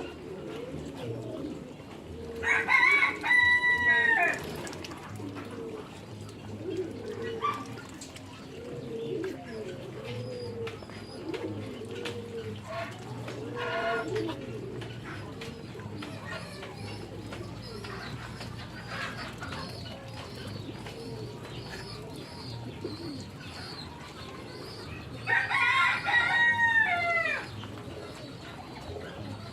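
Farmyard fowl calling: two loud, drawn-out calls of about two seconds each, a few seconds in and again near the end, over steady low cooing throughout.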